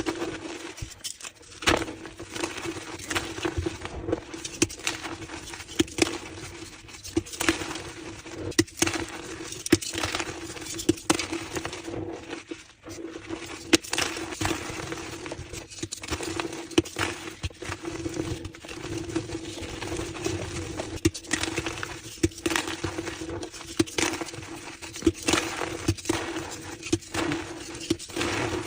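Reformed gym chalk blocks being crushed, a fast irregular run of crisp crunches and crumbling crackles, over a faint steady low hum.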